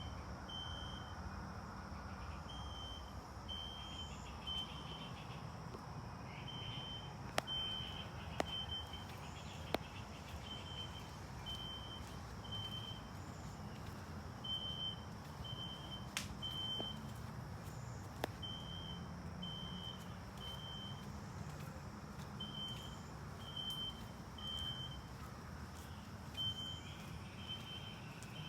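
A tablet speaker plays a recorded System Sensor SpectrAlert Classic fire alarm horn in the temporal-three evacuation pattern: three short high beeps and a pause, repeating about every four seconds. Under it runs a low steady rumble, and a few sharp clicks come through.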